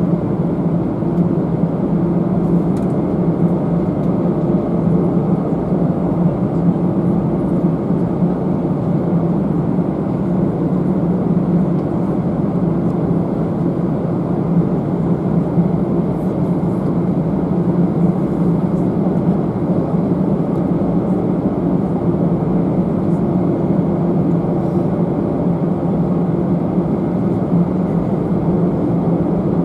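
Steady low drone of an Airbus A319-111's CFM56 engines and cabin air, heard from the economy cabin, even and unbroken throughout.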